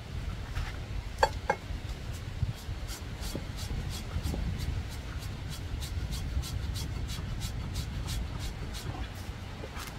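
Hand rasp being drawn over an elephant's foot, filing the toenail in short regular strokes, about three a second from a few seconds in. There are two brief sharp ticks just over a second in.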